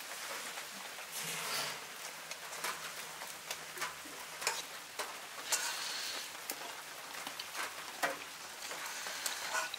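Steady hiss of rain falling, with a metal spoon clinking and scraping against an iron wok and a steel plate as curry is served onto rice.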